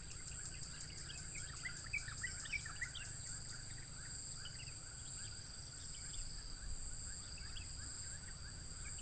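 Outdoor insect chorus: a steady, high-pitched drone of crickets or cicadas, with small birds giving short chirps, mostly in the first half.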